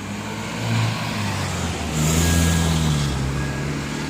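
Heavy diesel engine running and revving up under load, growing louder twice, with a hiss about two seconds in.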